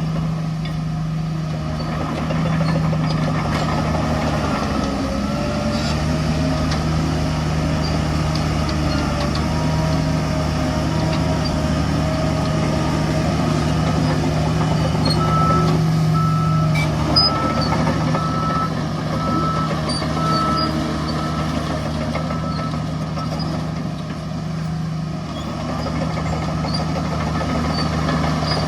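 Heavy diesel construction machinery running steadily. A reversing alarm beeps at an even pace for several seconds around the middle.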